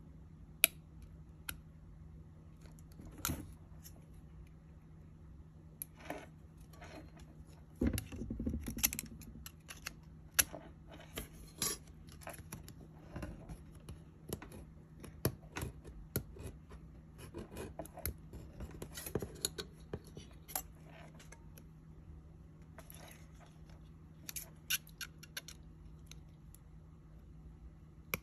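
Scissors cutting a thin tuna can lid: irregular sharp snips and clicks of the blades through the metal, with scraps of the lid clinking and scraping on the table. A steady low hum runs underneath.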